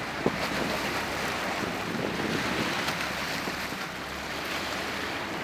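Seawater splashing and churning against the side of a boat as a hooked marlin thrashes at the surface, with wind buffeting the microphone. A single sharp tap sounds just after the start.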